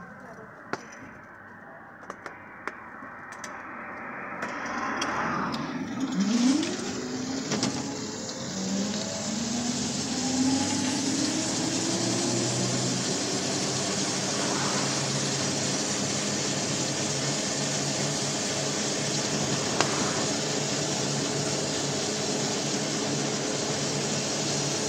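Homemade electric quadricycle with two 350 W motors pulling away, heard from inside its cabin. The motor whine rises in pitch as it gathers speed, a few seconds in. It then settles into a steady hiss of tyres on a wet road with a faint motor hum.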